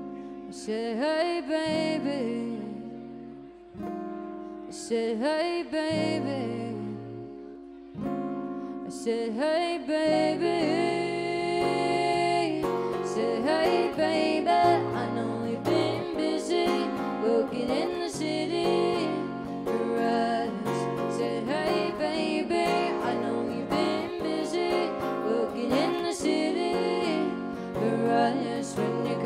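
Live acoustic ballad: a woman singing over her own acoustic guitar. The playing is sparse with short pauses at first, then becomes fuller and steadier from about eight seconds in.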